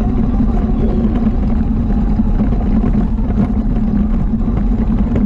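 ATV engine running at a steady, unchanging pitch.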